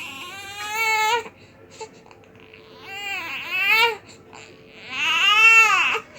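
Newborn baby crying in three bouts, each rising and falling in pitch, with short breaths between; the last bout is the loudest.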